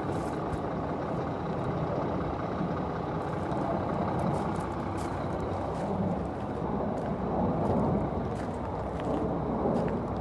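A motor vehicle's engine running steadily, with a few faint ticks.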